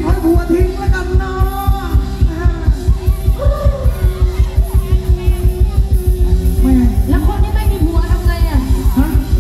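Live band playing a Thai ramwong dance song: a singing voice over a fast, steady drum beat.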